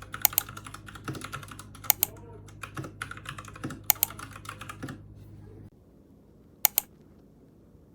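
Typing on a Royal Kludge RK61 mechanical keyboard with red switches: a rapid run of keystrokes, with a louder double clack about every two seconds. The typing stops about five seconds in, and one more double clack comes near the end.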